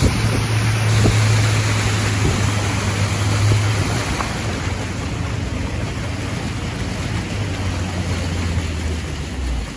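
A boat's motor running with a steady low hum under wind and water noise; near the end the hum drops lower and stops as the motor is throttled back.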